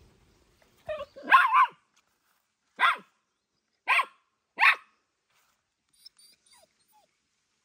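Small fluffy white dog barking: a quick cluster of barks about a second in, then three single short barks about a second apart. Faint bird chirps near the end.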